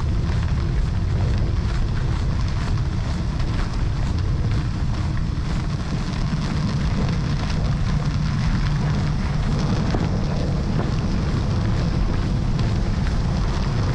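Steady wind noise buffeting the microphone in gusty blizzard wind, a low rumble with an even hiss above it.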